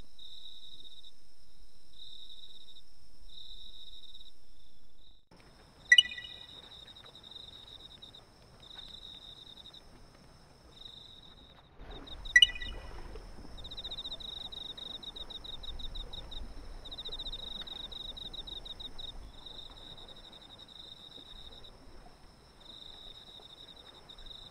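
Night insects, crickets, chirping in rapid pulsed trills over a faint high steady tone, joined about five seconds in by a low rushing background. Two sharp clicks with a brief ring stand out about six seconds apart.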